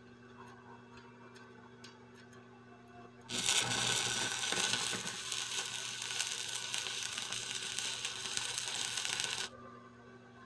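Stick-welding arc from a 6013 electrode on steel angle iron: a dense crackling noise starts suddenly about three seconds in, runs steadily for about six seconds, then cuts off as the rod is lifted.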